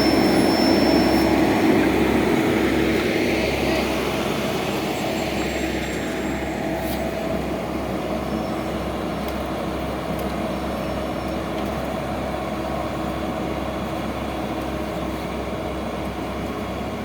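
Engine of heavy road-paving machinery running steadily with a constant hum, fading over the first few seconds and then holding level.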